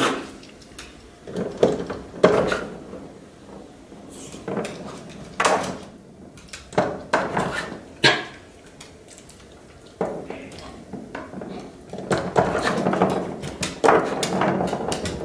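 Irregular plastic knocks, taps and short rattles as a Jack Russell terrier paws and noses a plastic ball-track cat toy, the ball knocking about in its ring, busier and more continuous near the end.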